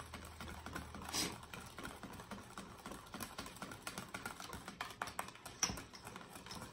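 Wire whisk clicking and scraping irregularly against a stainless steel mixing bowl as pudding mix is whisked by hand; the pudding is thickening.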